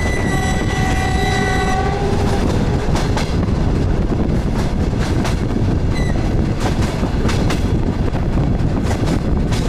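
DR1A diesel train running with a steady loud rumble. Its horn sounds one held chord for about two seconds at the start. The wheels clack over rail joints a few times after that.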